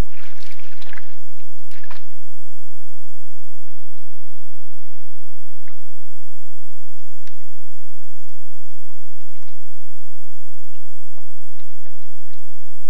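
Bull moose drinking from a muddy swamp puddle: wet slurping and sucking clicks, a burst in the first second and another at about two seconds, then scattered single wet ticks, over a faint steady high hiss.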